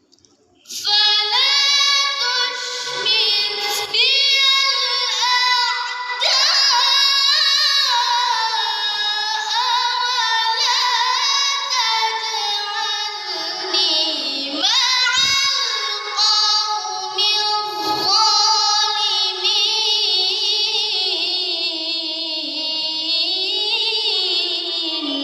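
A high-pitched solo voice reciting the Qur'an in the melodic tilawah style: long held, ornamented phrases with a wavering, trilling pitch, starting about a second in and pausing briefly for breath a few times.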